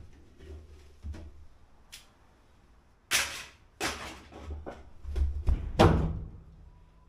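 A series of knocks and thuds, some small and a few loud, the loudest about three seconds in and again between five and six seconds in.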